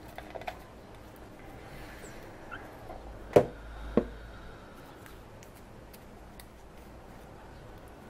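Hands handling a cardboard box and a folded paper slip: a few light clicks, then two sharp knocks a little over half a second apart, followed by faint handling and rustling.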